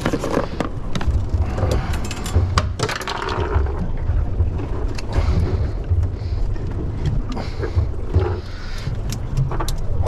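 Wind buffeting the microphone as a steady, uneven low rumble, with scattered sharp clicks and knocks throughout.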